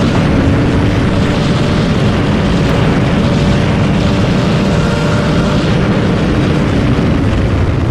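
Triumph Street Triple's three-cylinder engine held at high revs under full throttle as the bike accelerates past 200 km/h, with a steady rush of wind over the microphone.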